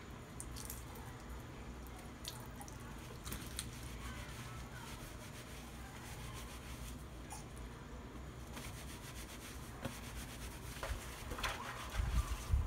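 Hands rubbing and squeezing a wet sweatshirt-fleece cloth-diaper insert lathered with anti-residue shampoo: soft wet squelching and rustling, getting louder near the end.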